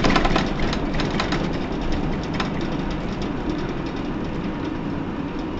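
Hino PDG-KV234N2 city bus heard from inside the cabin, its diesel engine running as the bus travels, with clicks and rattles of interior fittings in the first half. The overall sound gradually gets quieter.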